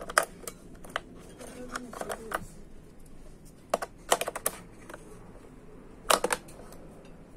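Sharp plastic clicks and rattles of AA batteries being pushed and snapped into a digital wall clock's battery compartment, in several quick clusters.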